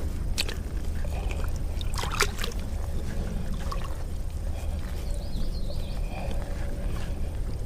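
Creek water sloshing and splashing as hands work a beaver trap down into the shallow water, with a few sharp clicks in the first couple of seconds over a steady low rumble.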